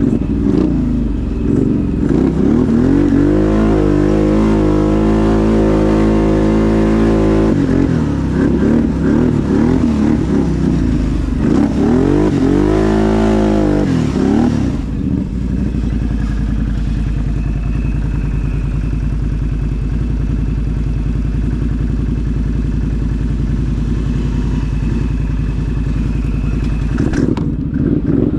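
ATV engine under load, revving up and down in pitch, then running steadier and lower from about halfway through.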